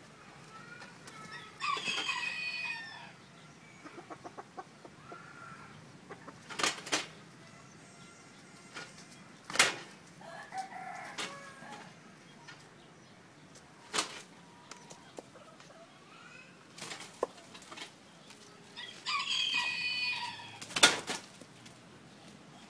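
Roosters crowing twice, about a second and a half each, once near the start and once near the end. In between come sharp single knocks and wing flaps as two gamecocks strike at each other through a chain-link wire fence.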